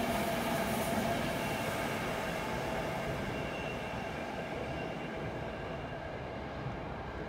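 An NS Traxx electric locomotive and its passenger coaches rolling away over the rails. The running noise carries a steady high whine and fades gradually as the train recedes.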